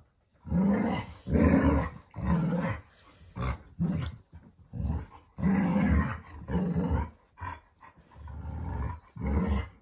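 Alaskan malamutes, an adult and a puppy, growling and grumbling in rough play: a string of about a dozen loud growls, each under a second long.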